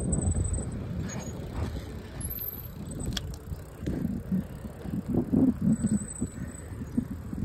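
Bicycle rolling along a rough dirt path with the rider's handheld phone jostling: irregular low rumble and buffeting, heaviest in the second half, with a sharp click about three seconds in.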